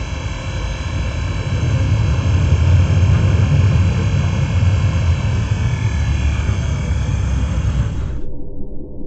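Small family roller coaster train rolling along its steel track: a steady low rumble, loudest about two to three seconds in. About eight seconds in the higher sound drops away abruptly, leaving only a muffled low sound.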